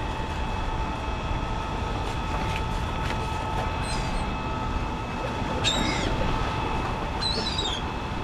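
A steady machine hum with a few short bird calls over it, about four, six and seven and a half seconds in, from birds gathering over the fish scraps.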